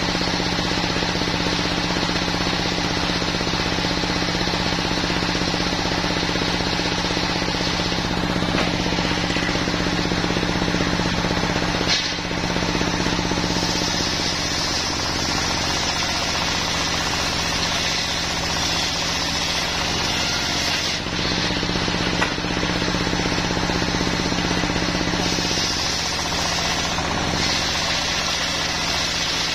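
Small stationary diesel engine running steadily, driving a circular saw bench. From about halfway, the saw blade rips lengthwise through a log, adding a higher cutting noise over the engine, which comes and goes as the log is fed.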